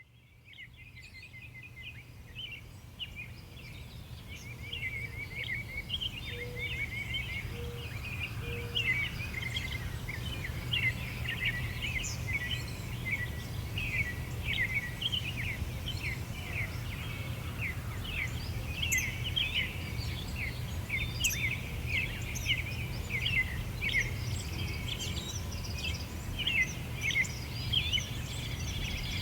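A chorus of small songbirds chirping and trilling densely over a steady low background rumble, fading in from silence at the start. Three short low hoots sound about seven seconds in.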